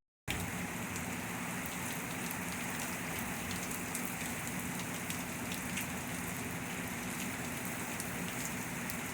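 Heavy rain falling steadily, with faint scattered ticks of individual drops.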